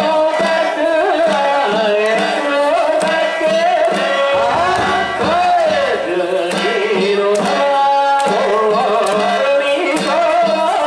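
Danjiri festival music: a wavering, bending high melody carried over a busy percussion rhythm, continuous and loud.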